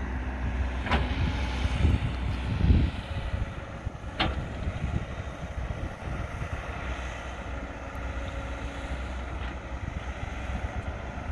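CAT hydraulic excavator's diesel engine running steadily while it digs, with louder surges of low rumble around two to three seconds in. Two sharp knocks stand out, about one second and about four seconds in.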